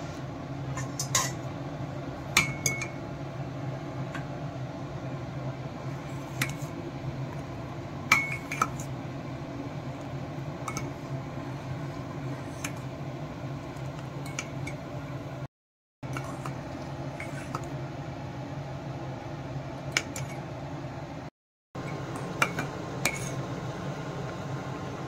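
A steel spoon clinking now and then against a stainless steel pot while stirring rice simmering in milk, over a steady low hum.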